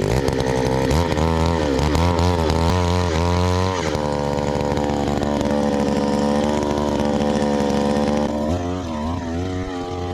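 Gas-powered post hole auger's small engine running at high revs while the auger bores into soil. The engine pitch dips and recovers repeatedly, first in the opening seconds, then steadier, then wavering again near the end.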